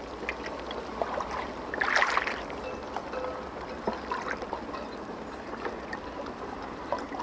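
Gentle lapping, trickling river water, with a few faint clicks and a brief louder swish about two seconds in.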